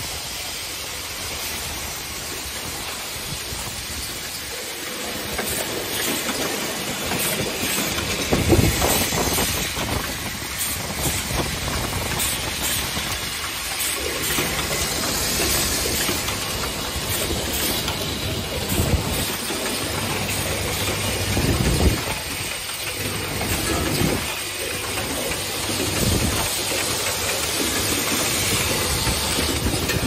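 Automatic hydraulic-hinge assembly machine running: a steady hiss of compressed air from its pneumatic cylinders over a continuous clatter of its working stations, with louder knocks about 8 s and 22 s in.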